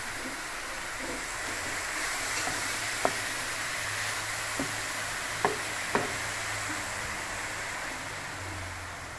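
Chopped fenugreek leaves sizzling as they fry in hot oil in a pan, stirred with a wooden spoon. Between about three and six seconds in, the spoon knocks sharply against the pan four times.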